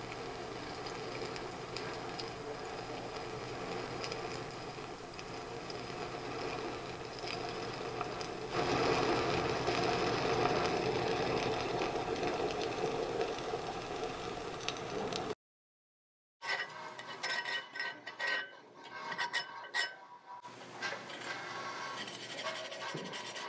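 Stick-welding arc from a 7018 electrode running steadily as it lays a fill stringer, louder from about eight seconds in. It cuts off suddenly about fifteen seconds in, and irregular clinks and scrapes follow as a wire brush is worked over the fresh bead to clean off the slag.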